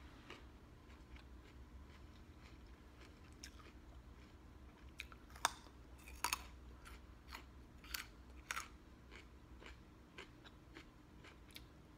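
A person chewing food close to the microphone: irregular crisp crunches and mouth clicks, with a few louder crunches past the middle.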